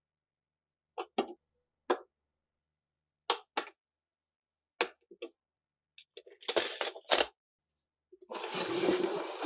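Rusty steel gun parts set down one at a time on the glass bottom of a glass tank: a string of sharp clinks of metal on glass, closer together around two-thirds of the way through. Near the end a steady rush begins, like liquid pouring into the tank.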